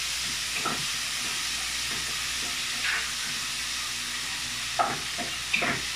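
Steady background hiss, with a few faint soft taps scattered through it.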